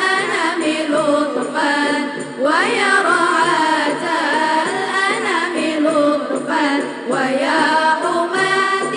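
Girls' vocal group singing an Arabic nasyid, a slow ornamented melodic line with a sweep up in pitch about two and a half seconds in.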